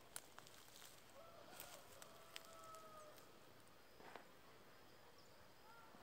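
Faint rooster crow, one drawn-out call of about two seconds starting about a second in, with a few small clicks around it in a near-silent rural background.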